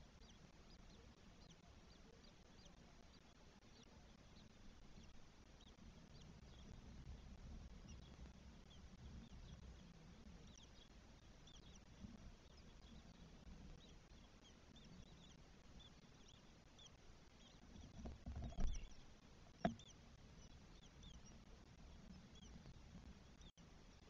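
Faint, high squeaky peeps of day-old starling nestlings begging in the nest, scattered throughout. Two dull knocks about a second apart come past the middle and are the loudest sounds.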